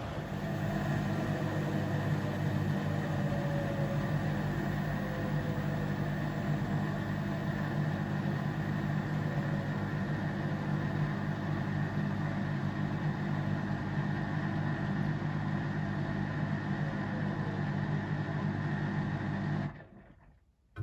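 Steady motor hum of a running household washing appliance, stopping abruptly near the end.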